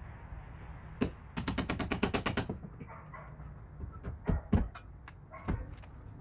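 A rapid rattling run of sharp impacts, about ten a second for roughly a second, from a percussive power tool at work, followed by a few separate knocks over a low steady hum.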